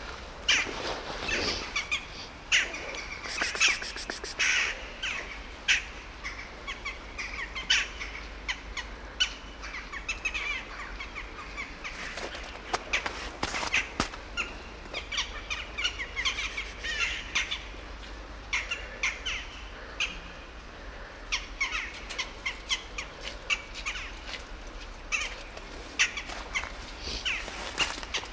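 Crows cawing again and again, with many short sharp clicks and crunches scattered among the calls.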